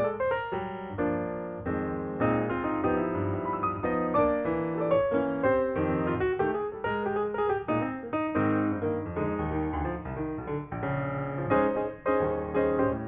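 Background piano music, many notes played in quick succession with held chords beneath.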